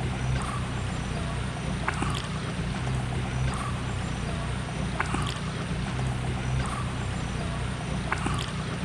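Steady rushing of flowing water, with a short rising chirp-like call repeating about every second and a half.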